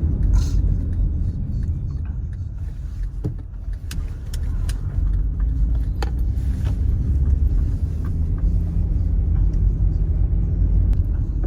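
Cabin noise of a 2007 Honda Civic Hybrid being driven: a steady low rumble of engine and road, with a few faint ticks. At this point the scanner is logging repeated misfires, mostly on cylinder 1.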